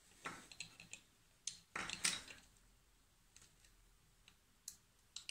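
Scattered small clicks and rustles of hands handling plastic circuit component blocks, wires and a small buzzer on a wooden table, with a louder rustle about two seconds in. The buzzer itself is not sounding.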